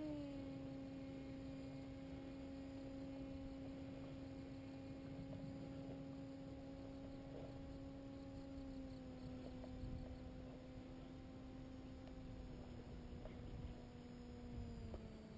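Oxy 1.0 paramotor's engine and propeller heard far off in flight, a faint steady hum whose pitch drops slightly in a few small steps.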